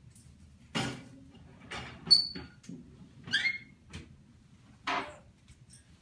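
African grey parrot giving a few short calls: a harsh noisy call about a second in, a brief high whistle (the loudest sound), a warbling chirp, and another harsh call near the end.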